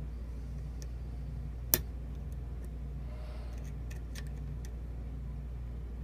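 Faint metallic clicks and ticks of a lock pick working the pin stack of a six-pin First Watch padlock under tension, with one sharp click just under two seconds in. The lock sits in a false set while a rear pin is being lifted. A steady low hum runs underneath.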